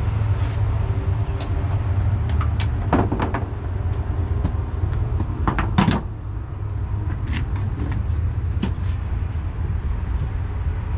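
Scattered knocks and clatter of gear being shifted about on the plywood floor of a cargo trailer, the loudest a quick pair of bangs about six seconds in, over a steady low rumble.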